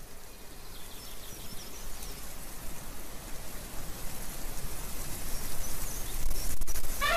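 Outdoor ambience track: a steady rushing hiss that grows louder, with faint high chirps and a low rumble building near the end. At the very end an elephant trumpet begins, a loud pitched call.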